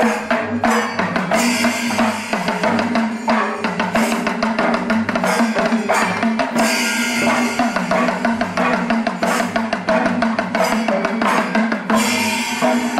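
Music with a busy, steady drum beat over a held low note.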